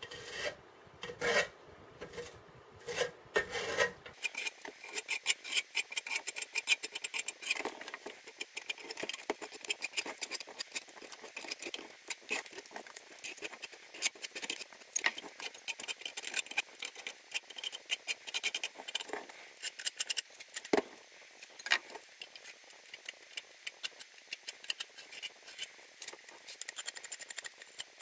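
Plastic filler spreader scraping body filler across a rusted steel machine-gun magazine drum. A few separate strokes come first, then from about four seconds in a fast, continuous run of short scrapes.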